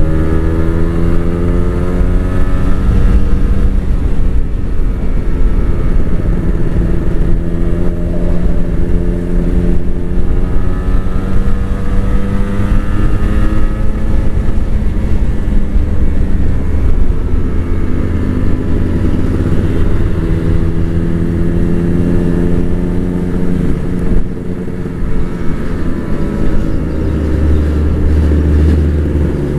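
Kawasaki Ninja RR 150's single-cylinder two-stroke engine on its original exhaust, heard from the saddle while riding. Its pitch climbs and drops again several times as the rider accelerates and changes gear.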